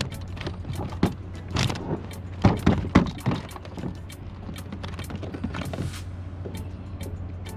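Irregular knocks and clicks with a light metallic jingle as a freshly landed cutlass fish and the hand-line tackle are handled against the kayak, the loudest knocks coming about two and a half to three seconds in. A steady low hum runs underneath.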